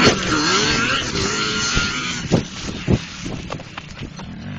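ATV engine revving, its pitch rising and falling, then fading in the second half. A few sharp thumps stand out in the middle.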